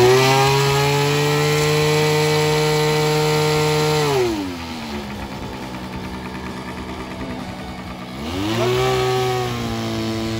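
Radio-controlled model seaplane's small pylon-mounted engine running at high revs, throttled back to idle about four seconds in, then revved up again about four seconds later as the seaplane is released to taxi out across the water.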